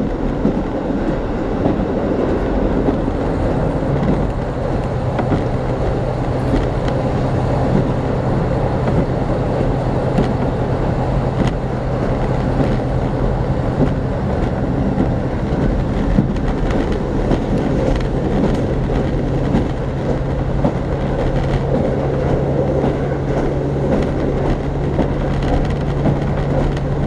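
A diesel local train heard from inside a passenger car while running: a steady rumble of wheels on rail with scattered clicks from the rail joints. A steady low engine hum joins in about four seconds in.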